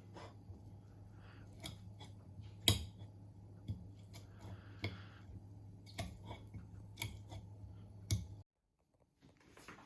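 Kitchen food-preparation sounds: scattered light knocks and clicks of utensils being handled, over a low steady hum. The sound cuts out for about a second near the end.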